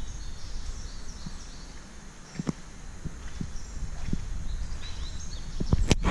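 Steady low background rumble with faint high chirping. A few sharp clicks or knocks come through it: one about two and a half seconds in, and a louder pair just before the end.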